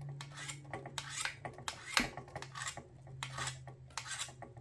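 Steel scissor blade drawn along a ceramic sharpening rod, a series of short rasping strokes about two a second as the edge is honed.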